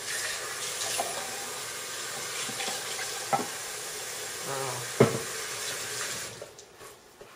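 Clams sizzling in a frying pan on very low heat, with three sharp knocks of a utensil on the pan as they are stirred. The sizzle fades out near the end.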